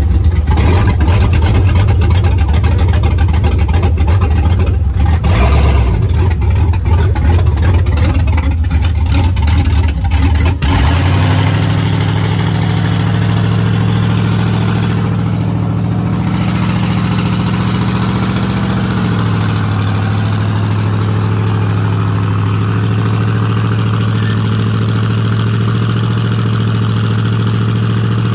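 Pickup truck engine revved hard and unevenly for about ten seconds, then settling into a steady high idle whose pitch shifts slightly a little past the middle. The owner says the engine needs a tune.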